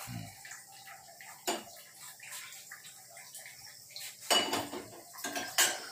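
Steel kitchenware clinking and knocking: small steel bowls and a pan handled on a gas stove, a few scattered sharp clinks with the loudest cluster about four seconds in and another near the end.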